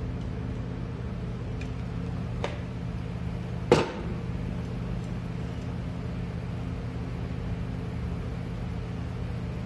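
A steady electrical hum with a sharp knock about four seconds in and a couple of faint clicks before it.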